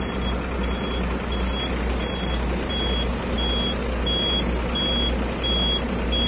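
Unic boom-truck crane's winch being run under the truck engine's power during a test after servicing, with a steady low drone. Over it a warning beeper gives a short high beep about three times every two seconds.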